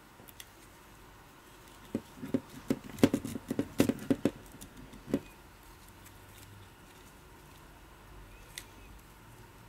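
Nylon neck strap being threaded through the metal strap lug of a Sony a5100 camera body: a run of quick clicks and rustles of webbing and handled plastic from about two to five seconds in, then one more click near the end.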